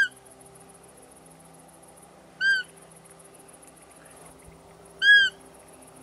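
Three short, high squeaking calls about two and a half seconds apart, each rising and falling in pitch: a roe deer 'fiep' call, the doe's squeak that draws a buck during the rut.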